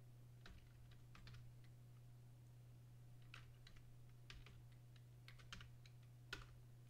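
Faint computer keyboard keystrokes, irregular taps in small clusters, the loudest about six seconds in, over a steady low hum.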